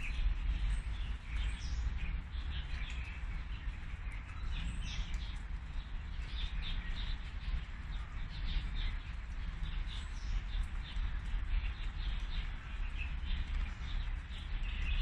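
Small birds chirping and tweeting in many short, overlapping calls, over a steady low rumble.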